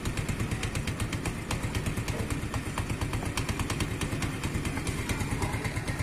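Motorcycle engine idling steadily with a quick, even beat.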